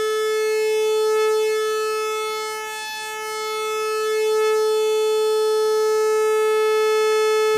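Prophet-5 rev 2 analog synthesizer sounding one held note near 440 Hz on oscillators 1 and 2 together, pulse wave, with no processing. The buzzy tone holds a steady pitch but slowly fades and swells back, dipping about three seconds in, as the two slightly detuned oscillators beat against each other.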